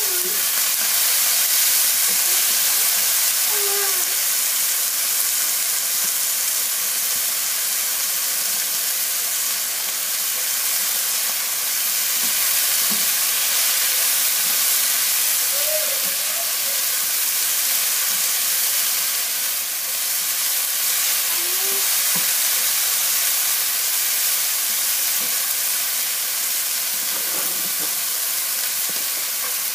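Chicken pieces sizzling in a nonstick frying pan as they are stir-fried with a spatula: a steady, even frying hiss.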